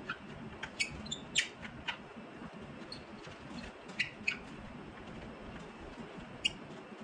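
Short, sharp metallic squeaks and clicks from propeller hub bolts and their washers being turned loose by hand, several scattered chirps over a faint steady background.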